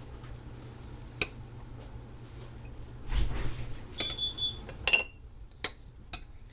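A serving spoon scraping and clinking against a plate as food is dished up: a sharp clink about a second in, a short scrape, then a quick run of clinks, one ringing briefly, and two lighter taps near the end.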